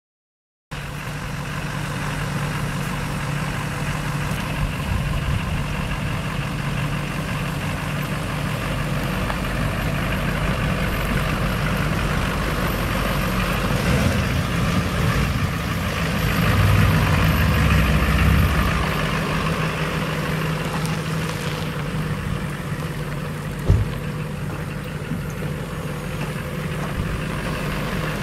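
Chevrolet Silverado 2500HD's 6.6-litre V8 turbo diesel idling steadily, starting just under a second in and swelling louder for a couple of seconds midway. A single sharp knock is heard near the end.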